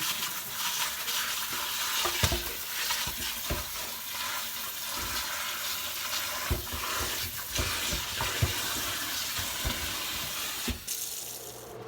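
Kitchen tap running in a steady hiss while vegetables (onions, beets, carrots) are washed under it, with scattered knocks of the vegetables against the sink. The water stops near the end.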